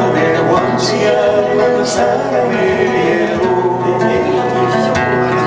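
Three acoustic guitars playing together while a man sings a melody into a microphone.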